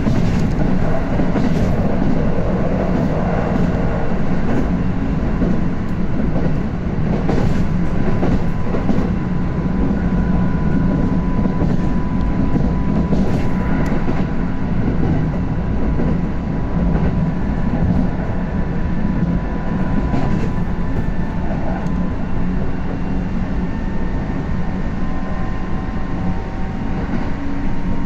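Kintetsu electric train running at speed, heard from inside the car: a steady rumble of wheels on rail with clicks over rail joints. Faint steady tones come from its GTO-thyristor inverter drive.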